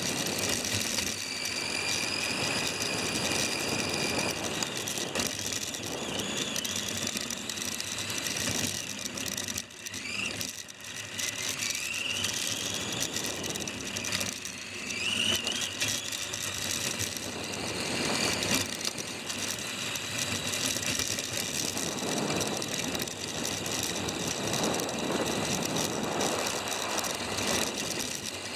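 Tamiya F101 radio-controlled F1 car running, heard from a camera mounted on the car: the electric motor and gears whine, rising in pitch as it speeds up, over a steady rattle of the chassis and tyres on the track. It eases off briefly about ten seconds in.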